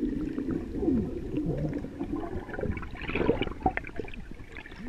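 Underwater sound picked up by a submerged camera: a dull, muffled wash of water with bubbling gurgles and small clicks.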